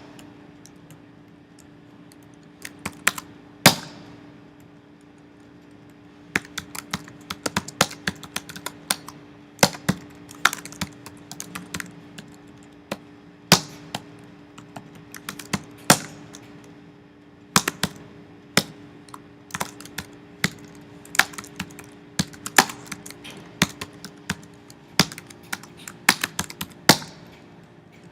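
Typing on a computer keyboard: irregular runs of key clicks broken by short pauses, with a few louder single strokes. A steady low hum runs underneath.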